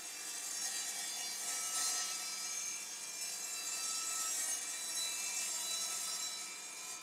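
Evolution R255SMS-DB-Li cordless 36V sliding mitre saw running with a steady whine, its blade coming down and cutting through a board for a test cut.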